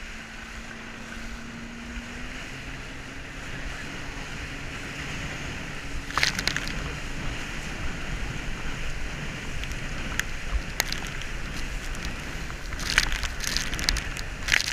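Wind rushing over a GoPro's microphone and water hissing under an inflatable flying-fish ride towed at speed, with bursts of spray splashing about six seconds in and again near the end. A faint engine drone from the towing speedboat rises slightly in pitch over the first few seconds.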